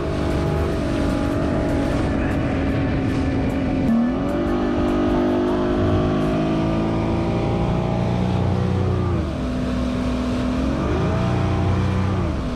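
Motorboat engine running under way, towing. Its pitch dips and climbs back twice as the throttle changes.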